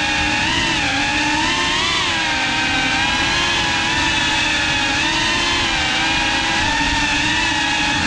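FPV racing quadcopter's brushless motors and propellers whining, picked up close by the action camera on board, the pitch wavering gently up and down with the throttle. The whine cuts off suddenly at the very end.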